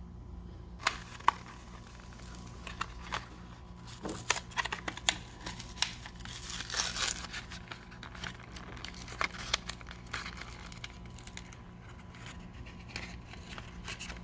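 Plastic blister pack of replacement wedge-base brake-light bulbs being torn open: irregular crinkling of the plastic and tearing of the card backing, heaviest in the middle. Two sharp clicks come about a second in.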